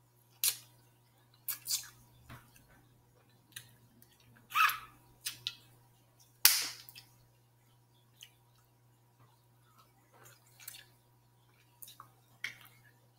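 Snow crab leg shells cracking and snapping as they are pulled apart by hand. About a dozen short, sharp cracks come at irregular intervals, the loudest about six and a half seconds in.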